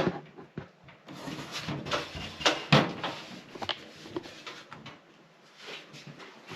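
Handling noises from a PC case: irregular knocks and clicks with rustling as the case is turned and examined, loudest at the very start and again just under three seconds in, tapering off in the last second and a half.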